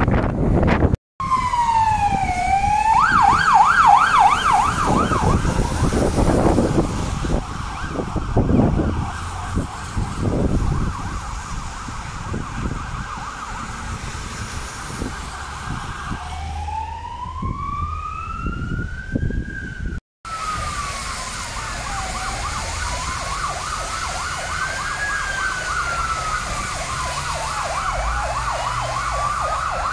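Fire engine sirens passing, switching between a fast yelp and a slow wail that rises and falls. In the last third a slow wail and a fast yelp sound together, two appliances at once. Low gusting noise sits under the first half.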